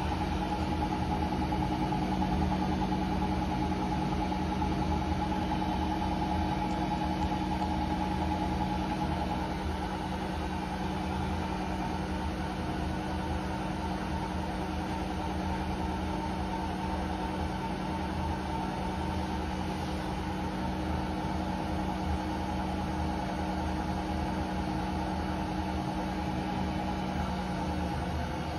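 Hotpoint Ariston AQ83D washing machine spinning at speed: a steady motor hum and whine with several held tones. It eases slightly about a third of the way in, and the motor tones drop away near the end.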